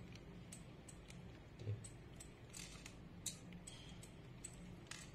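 Black peppercorns shaken from a glass bottle, dropping into the pot onto the raw pig skull as scattered light, irregular ticks, a few louder than the rest.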